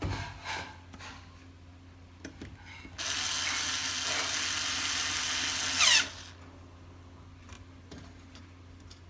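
Electric screwdriver running for about three seconds as it drives in a screw to fasten the TV's support, getting louder as the screw seats and winding down in pitch as it stops. A few light handling clicks come before it.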